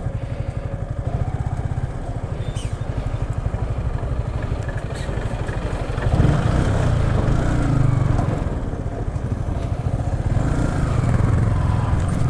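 Yamaha R15 V3's single-cylinder engine running at low speed on a dirt track, with an even low pulse. About six seconds in, a louder low rumble joins it as a lorry passes close alongside.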